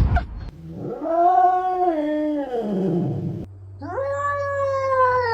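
A cat giving two long, drawn-out meows, each rising and then sliding down in pitch.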